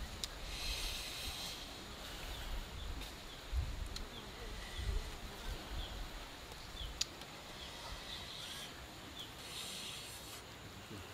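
Quiet outdoor ambience: a high insect buzz that swells near the start and again near the end, a few faint bird chirps and clicks, and irregular low rumbles.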